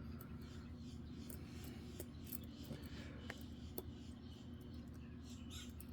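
Faint scratching and light metallic ticks of a lock pick and tension wrench working the pin stack of a U.S. General round body padlock, with a few sharper clicks scattered through, over a steady low hum.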